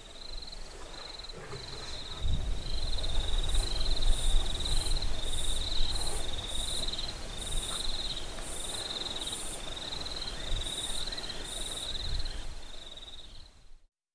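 Night insects chirping: a steady pulsing trill, joined a few seconds in by a second, higher insect pulsing about twice a second. Under them, a low rumbling comes in about two seconds in as the loudest sound and fades near the end, and everything cuts out just before the end.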